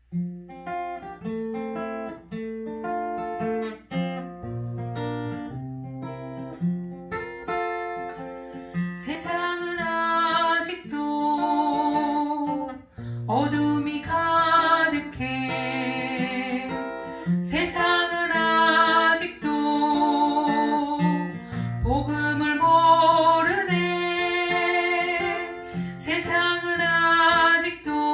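Acoustic guitar plays a plucked introduction. About nine seconds in, a woman starts singing a Korean worship song over it, holding notes with vibrato.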